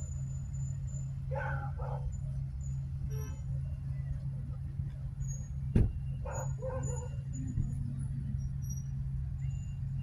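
A steady low engine drone, with one sharp knock about six seconds in.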